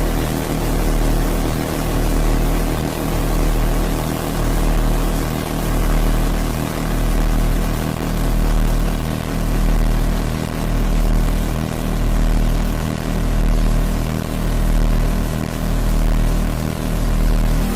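Cartoon 'dizzy' sound effect: a dense droning chord with a deep throb that swells and fades about once every two seconds.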